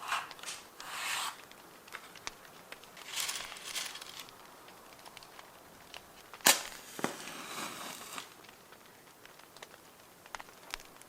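Paper being handled, rustling and crinkling in several short bursts, with one sharp snap about six and a half seconds in and small crackles scattered between.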